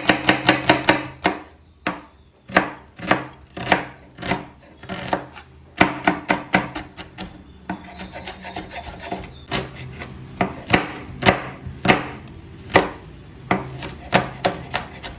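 Kitchen knife finely chopping onions on a cutting board: a fast run of strikes to start, then slower, uneven cuts.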